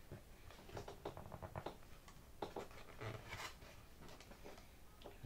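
Faint scratching, rustling and small clicks of hands handling a fuel tank and its Velcro strap inside a model airplane's fuselage, busiest about a second in.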